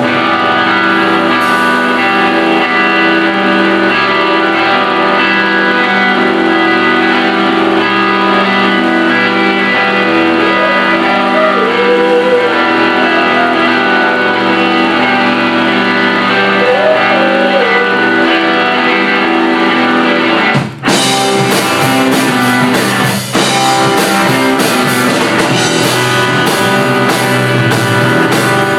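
A live band playing a rock song led by guitar, with held chords for the first two thirds. After a brief break about 21 seconds in, the playing turns more driving and percussive.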